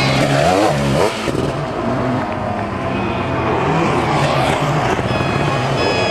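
Sidecar motocross outfit's engine revving hard under full throttle on a dirt track. The pitch climbs steeply in the first second, drops sharply just after, then rises and falls with the throttle.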